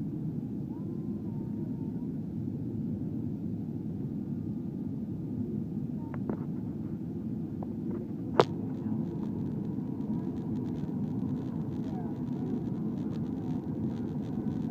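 Steady airliner cabin noise during the descent: a low, even rumble of engines and airflow. A sharp click about eight seconds in is the loudest moment, with a few fainter ticks just before it.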